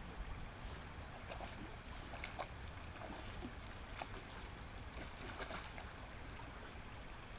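Dogs wading and swimming in shallow creek water, with a string of small irregular splashes and sloshes over a steady low rumble.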